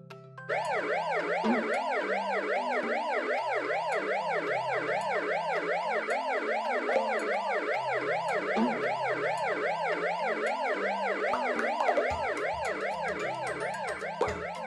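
Ambulance siren wailing in fast, continuous up-and-down sweeps, starting about half a second in, over a stepping bass line of children's background music.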